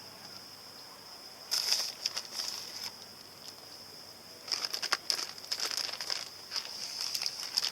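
Plastic packaging crinkling and rustling in two irregular stretches, while food is handled for a burrito.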